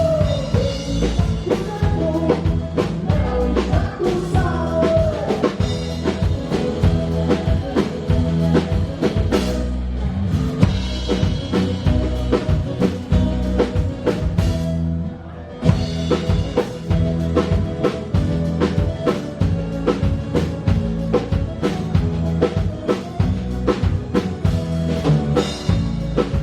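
Live band playing on stage, a drum kit driving a steady beat with bass drum and rimshots under the melody; the band briefly breaks off about halfway through, then comes back in.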